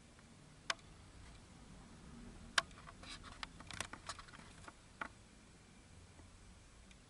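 A few sharp clicks and taps in a quiet room: a single click, then another, a quick run of several more past the middle, and one last one.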